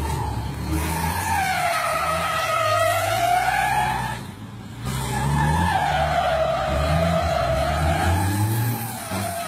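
Race truck's tyres squealing as it drifts in circles, with the engine running underneath. The squeal wavers up and down in pitch, breaks off briefly about four seconds in, then starts again.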